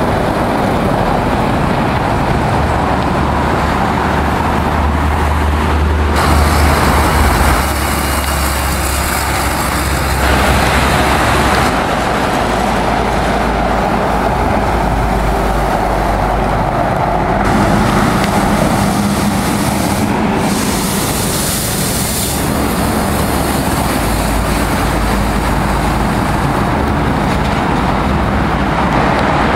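Heavy diesel trucks driving past on a town road, their engines running with a deep low note, with tyre and traffic noise. The sound changes abruptly several times as one passing truck follows another.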